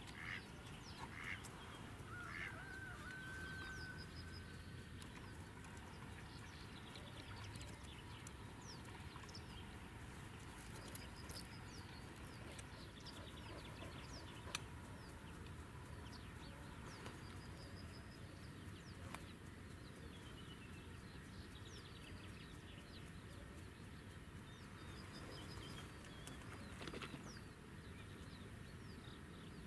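Ducks quacking several times in the first few seconds, typical of live decoy hens calling to draw in drakes, then small songbirds' high chirps repeating here and there over a faint low wind rumble.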